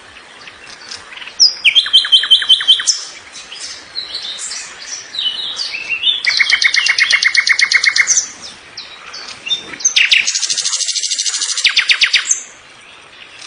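Songbird singing: loud phrases of rapid repeated notes, each lasting one to two seconds, three times, with softer chirps between.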